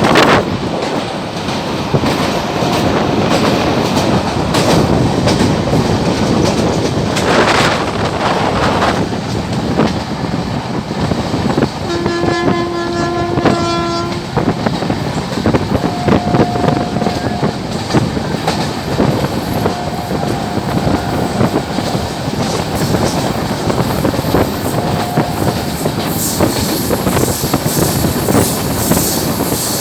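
WAP-7 electric locomotive hauling an express at about 110 km/h, its horn sounding in several short honks and one longer two-tone blast about twelve seconds in, over the loud steady rumble and clickety-clack of the train's wheels on the rails.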